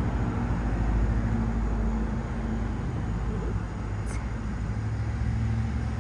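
Steady low engine-like hum and rumble of a running motor or vehicle, with one brief tick about four seconds in.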